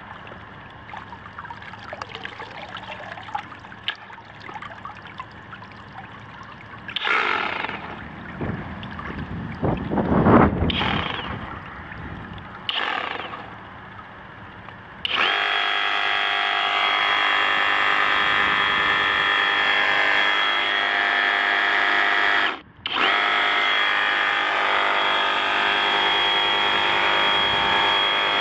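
Water sloshing and pouring off a Flex FX2271 24-volt brushless cordless reciprocating saw as it is lifted out of a tub of water, then about halfway through the saw runs steadily at speed with a high whine, still working after nearly an hour submerged. It stops for an instant about two-thirds of the way through and starts again at once.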